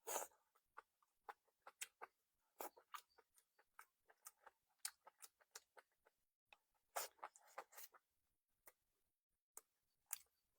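Faint close-miked chewing: a steady run of small wet clicks and mouth smacks, with a louder bite or smack just after the start and another about two-thirds of the way through.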